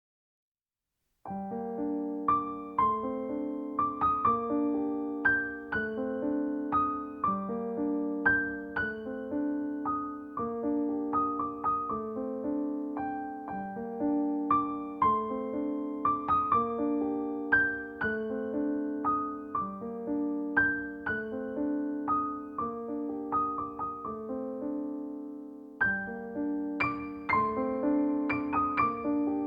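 Gentle solo piano background music, a soft repeating melody over steady chords; it starts about a second in and pauses briefly near the end before picking up again.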